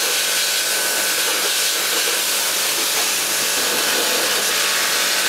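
Pressure washer jet spraying water onto a rangehood's fan and motor housing: a steady hiss with a steady high whine underneath.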